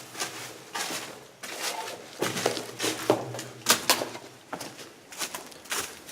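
Footsteps crunching and scuffing on gritty debris in a confined tunnel: irregular crunches and knocks, one or two a second.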